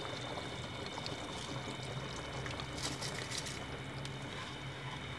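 Spiced broth boiling steadily in a metal cooking pot. About three seconds in there is a short rattling patter as rice is tipped into the boiling liquid.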